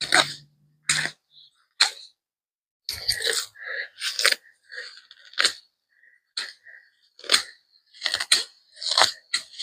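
Weeds and small bushes being pulled up by hand: about a dozen short, irregular bursts of crunching and rustling as stems, leaves and roots tear out of the soil.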